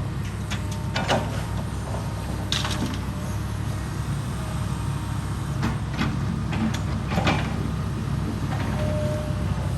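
Heavy construction machinery's diesel engine running steadily, with several sharp metallic clanks and knocks at uneven intervals.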